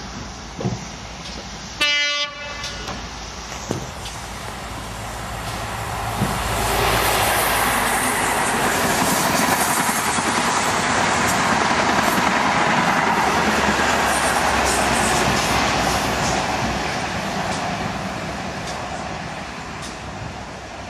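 Diesel passenger train sounding one short horn blast about two seconds in, then passing at speed. The rush of the train builds, stays loud through the middle as the coaches go by, and fades near the end.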